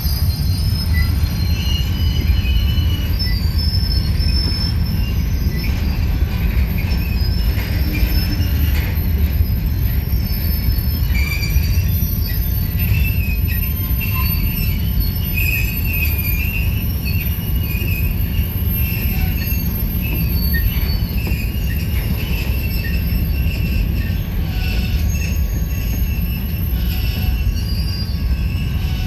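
Union Pacific freight train of covered hopper cars and boxcars rolling past, a steady low rumble with on-and-off high-pitched wheel squealing.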